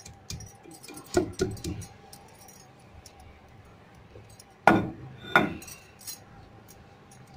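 Stone pestle (batta) of a sil-batta grinding stone knocking against the stone slab: two knocks about a second in and two louder ones near five seconds, with faint clicks and scrapes between them.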